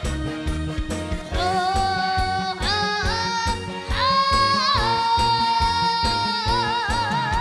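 Trot song with a steady beat and a boy singing into a microphone over it. His voice comes in about a second in and holds a long note that wavers with vibrato near the end.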